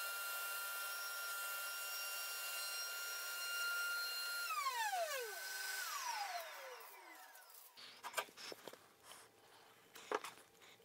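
Table-mounted router with its rabbeting bit running at a steady high pitch with dust extraction, then switched off: two falling whines as the motors spin down. After that, a few light knocks and clicks, the loudest about 8 and 10 seconds in.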